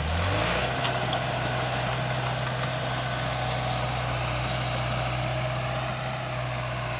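Bulldozer's diesel engine running as it scrapes soil, its pitch rising in the first half-second and then holding steady.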